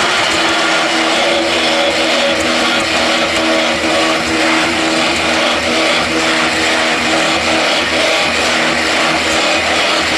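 QMY6-25 mobile hydraulic block-making machine running: its electric motors and hydraulic pump give a loud steady whine with a low pulsing underneath.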